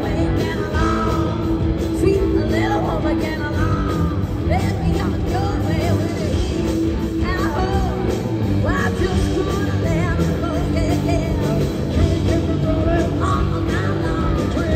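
Live rock-and-roll band with electric guitars, bass guitar and drums playing at full volume, with a woman singing the lead vocal.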